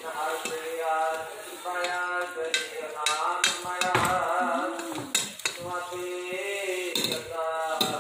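A steel ladle stirring and scraping through frying masala in a karahi, with repeated clinks of metal on metal and a faint sizzle. A sung melody with long held notes runs in the background.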